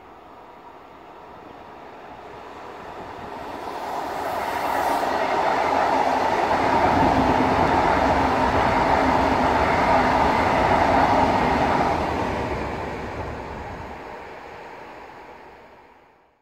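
A PKP Intercity passenger train running through the station, its wheel and rail noise building, loudest for several seconds as the carriages pass, then fading away.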